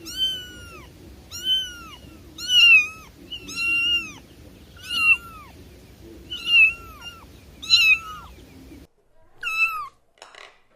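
Domestic cat meowing over and over, about one meow a second, each call rising then falling in pitch. A low background hum stops abruptly near the end, and one more meow follows.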